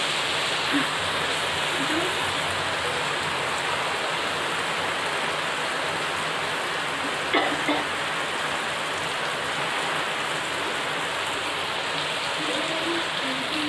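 Steady rain pouring down, an even hiss of downpour, with one brief sharp sound about seven seconds in.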